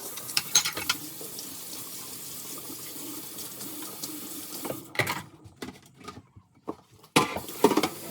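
A tap running steadily into a sink, stopping about five seconds in, followed by a few separate knocks and clatters.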